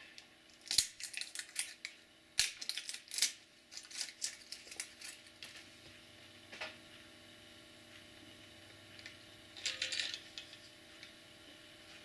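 AAA batteries being handled and fitted into the spring-loaded battery compartment of a Kaiweets HT100s non-contact voltage detector: small hard clicks and taps in irregular clusters, the busiest a few seconds in and a short burst near the end.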